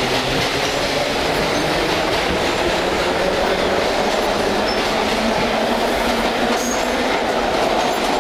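Vintage New York City subway car running along the track, heard from inside the car: steady wheel and track noise.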